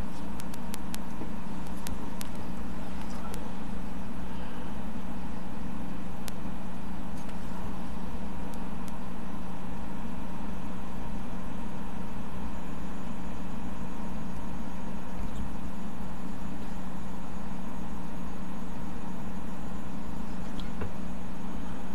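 A steady machine hum with a constant low drone and a fainter higher whine, with a few faint clicks in the first couple of seconds.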